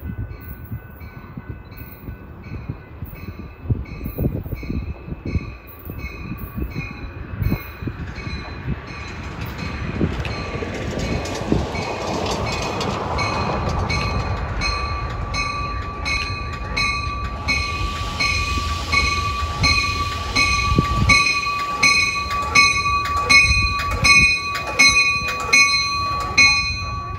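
Railroad grade-crossing bells dinging in a quick, even repeat while a train approaches. The train's rumble swells about ten seconds in and stays loud to the end, and the dinging grows louder and brighter in the second half.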